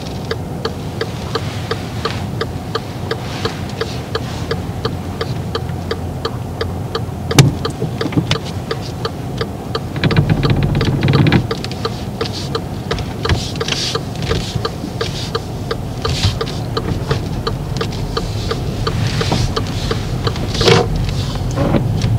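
Steady engine and road noise inside a moving car's cabin, with a regular ticking running through it and a sharp click about seven seconds in.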